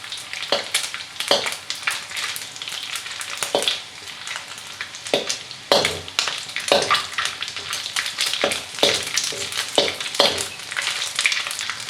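Dried anchovies sizzling in hot oil in a kadai on low heat, with irregular clicks and scrapes as they are stirred. They are frying until crisp and brown.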